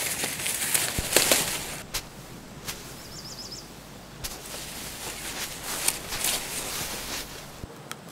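Close handling sounds of berry picking: twigs rustling and a few sharp snaps as red berry clusters are pulled off a bare bush, then more rustling of hands in a fabric backpack. A small bird gives a short high twitter of about five quick notes about three seconds in.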